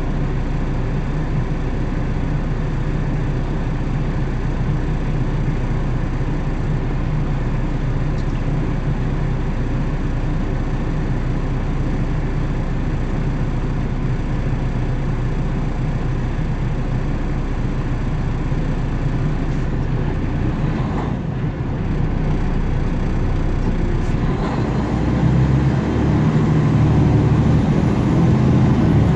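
Vehicle engine idling steadily, heard from inside the cab; about 25 seconds in it grows louder as the vehicle pulls away.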